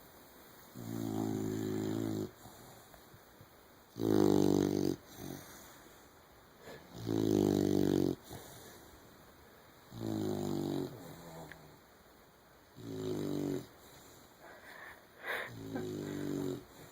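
Sleeping puppy snoring: six drawn-out, buzzing snores, each about a second long, coming roughly every three seconds.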